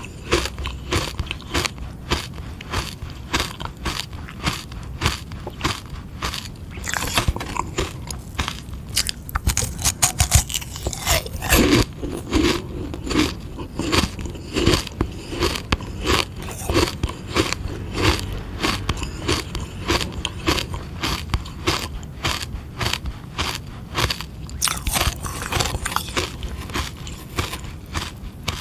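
Close-up biting and crunching of a frozen sugar-water ice lolly, with irregular sharp crackles as the ice is bitten off and chewed, thickest about a third of the way in.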